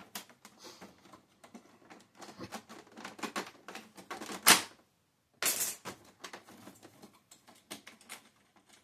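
Irregular clicking and rattling of plastic and metal printer parts being worked apart by hand with a screwdriver, with one sharp, louder snap about four and a half seconds in and a short scrape about a second later.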